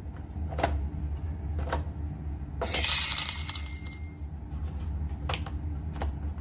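A few light knocks from objects being handled, and a bright clink that rings briefly about halfway through, over a steady low hum.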